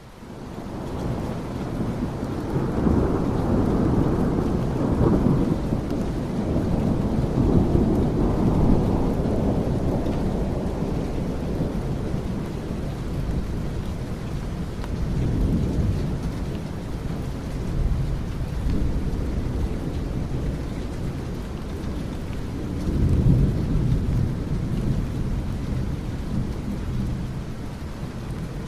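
A thunderstorm: steady rain with rolling thunder swelling up several times, loudest in the first ten seconds and again briefly around the middle and later on. It fades in from silence at the start.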